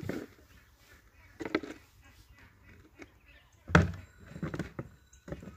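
A few scattered knocks and bumps of a plastic crate being handled at the water's edge, the loudest just before four seconds in.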